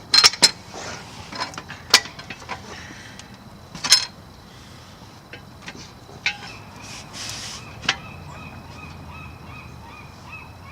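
Sharp metal clanks and knocks from a car subframe being worked into position on a jack: a quick cluster of strikes in the first half second, more about two and four seconds in, and one more near eight seconds.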